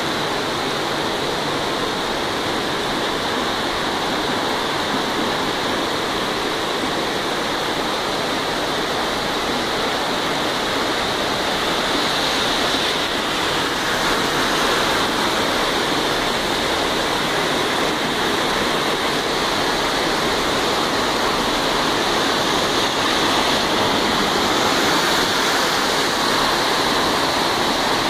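Heavy rain falling in a steady downpour, with water running on a flooding street.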